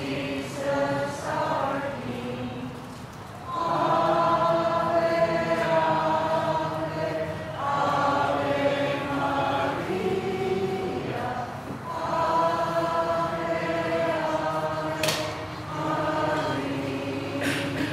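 Choir singing a closing hymn in long held phrases with short breaks between them.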